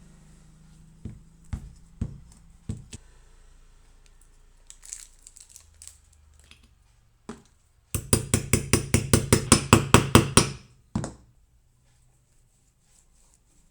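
A few separate sharp knocks, then a rapid run of about fifteen sharp knocks, about six a second, lasting some two and a half seconds, and one last knock. These are typical of tapping or hammering on a ceiling fan's parts while its bearing is being changed.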